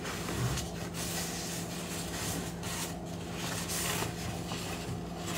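Gloved hands rustling and rubbing against a plastic milk jug and a paper towel, in uneven scrapes over a steady low hum.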